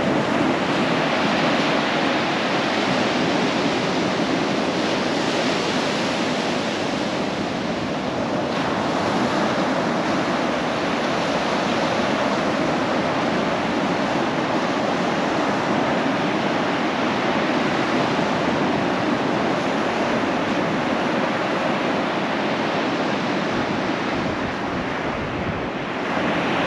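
Ocean surf breaking on a sandy beach: a steady rushing wash of waves.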